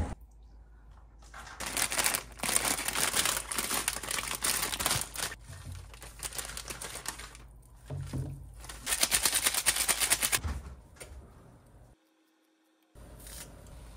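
Plastic instant-ramen packaging crinkling and tearing in two bouts, each full of sharp crackles; the second comes about nine seconds in.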